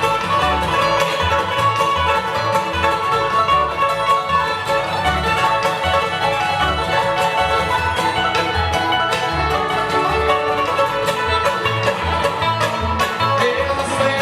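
Live bluegrass band playing an instrumental passage: banjo and guitar picking over a steady bass beat, with fiddle.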